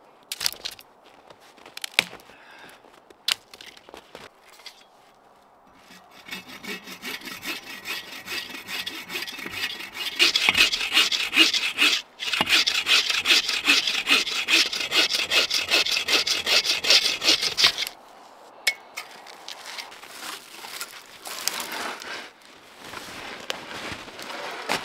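Bow saw cutting through a dead fallen log: steady back-and-forth strokes of the blade through the wood for about twelve seconds, with a short break partway, then it stops. A few sharp knocks come in the first few seconds, before the sawing starts.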